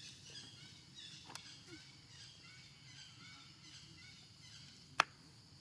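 Faint outdoor ambience of small birds chirping, with a light tick about a second in and one sharp click near the end.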